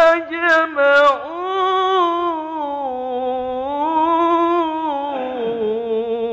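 A man's voice reciting the Quran in melodic tilawah style, drawing one syllable out into long ornamented notes that rise and fall, then settling lower in pitch.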